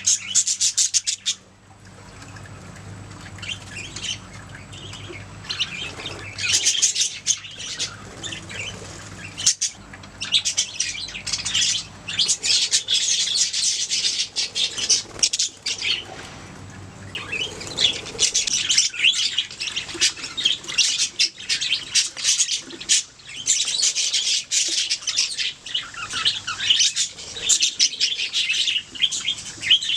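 Budgerigars chattering and warbling, a dense run of rapid high chirps and squawks that thins out briefly a couple of times.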